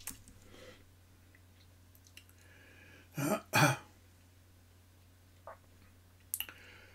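A man clearing his throat, two short rasps in quick succession about three seconds in, over quiet room tone with a steady low hum.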